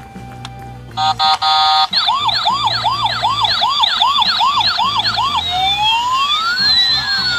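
Toy ambulance's electronic siren. A steady, broken beep starts about a second in, then turns into a fast rising-and-falling wail of about two to three cycles a second. For the last couple of seconds it changes to slow, long up-and-down sweeps.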